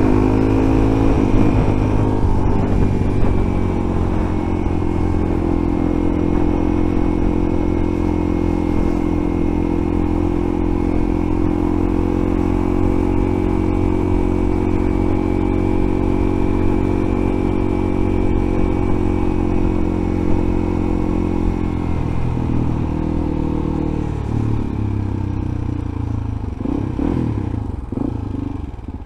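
Suzuki DR-Z400E single-cylinder four-stroke engine running at steady revs while the bike is ridden. About 22 seconds in, the steady engine note breaks up and falls off as the bike slows.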